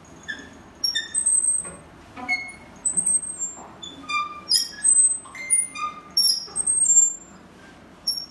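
Small birds chirping: many short, high-pitched calls at varying pitches, coming irregularly and overlapping.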